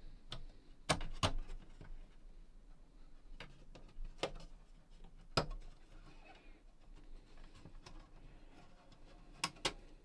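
Plastic tuning-dial scale panel of a Sharp GF-6060 boombox being eased off its clips: faint handling of plastic with a few sharp clicks, two close together near the end as the panel comes free.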